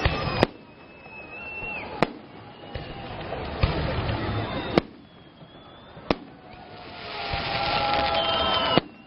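Aerial fireworks shells bursting overhead in a salute: about five sharp bangs, a second or two apart, with a swelling hiss between them.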